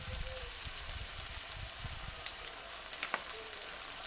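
Sliced onions and chillies sizzling as they fry in a pan, a steady hiss with a few light clicks about two and three seconds in.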